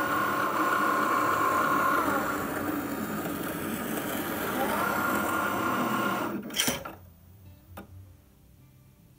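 Cricut Maker cutting cotton fabric with its rotary blade, its carriage and roller motors running with a steady whine. The pitch drops about two seconds in and rises again near five seconds as it works round the circle. The motors stop about six and a half seconds in, followed by a single click.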